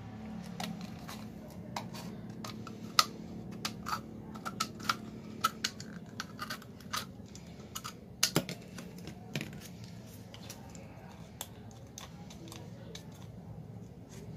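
Scissors snipping around an empty plastic Yakult bottle: a run of irregular sharp clicks and crackles of the thin plastic, closely spaced for the first nine seconds or so and then sparser.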